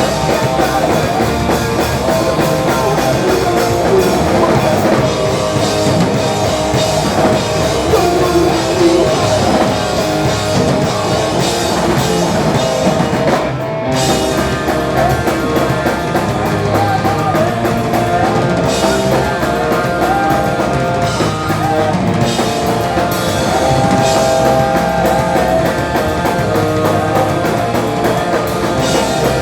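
Live punk rock band playing a song loudly on drum kit and electric guitars, with a split-second break about halfway through.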